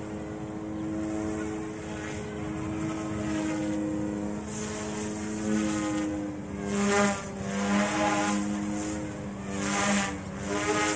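Eachine E180 direct-drive RC helicopter flying overhead: a steady whine from its brushless motors and rotors, with two louder surges of rotor noise about seven and ten seconds in.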